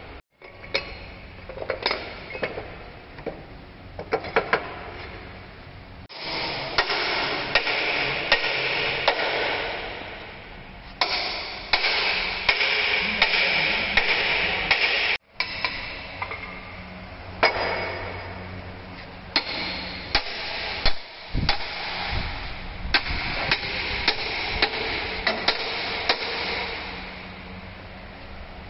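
Scattered sharp metal clanks and knocks of steel tools, chains and clamps being handled on a heavy-duty truck frame straightening bench, with long stretches of steady hissing noise between them.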